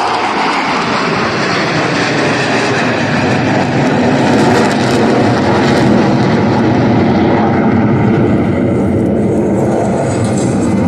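Jet engine noise from Blue Angels F/A-18 Super Hornets flying over, loud and steady.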